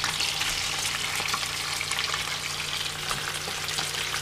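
Fish frying in butter in a pan: a steady sizzle with small crackles and spits throughout.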